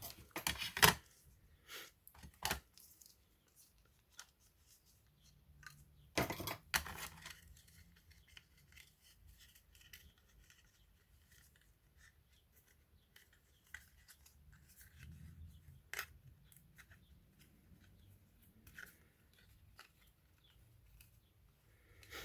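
Sharp clicks and a scraping rustle from hands working on laptop parts. A cluster of clicks comes in the first second, more at about two and a half seconds, and a longer rustling scrape at about six seconds, then faint scattered ticks.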